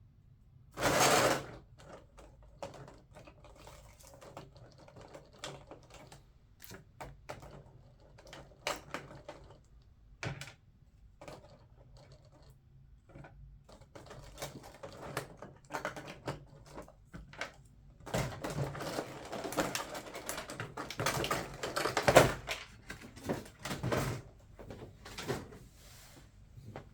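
Parts of a scale model airliner being handled and taken out of their packaging: scattered small plastic clicks and taps, a loud brief rustle about a second in, and a longer stretch of crinkly packaging rustle about two-thirds of the way through.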